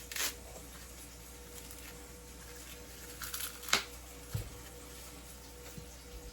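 An ear of corn being handled: a few short rustles of the husk, a sharp click a little before four seconds in, then a soft thump, over a faint steady hum.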